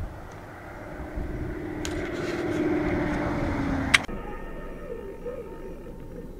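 Shimano Saragossa spinning reel whirring under load while a hooked juvenile tarpon is fought, growing louder and sinking slightly in pitch, then stopping with a sharp click about four seconds in. A quieter outdoor background follows.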